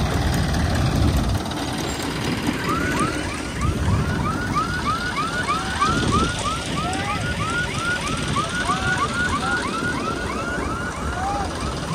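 Harvest machinery engine running steadily in the field. Over it comes a long series of short rising-and-falling chirps, about three a second, starting a few seconds in.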